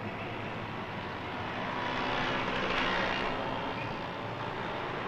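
City street traffic noise, with a passing vehicle swelling to its loudest about two to three seconds in and then fading.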